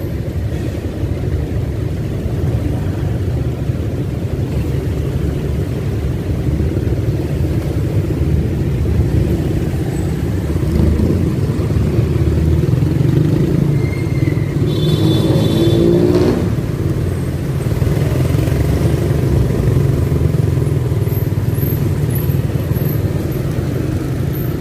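A motorcycle running at low speed in dense city traffic: a steady low engine and road rumble mixed with nearby motorcycles and cars. About fifteen seconds in, a nearby engine briefly revs up with a rising pitch.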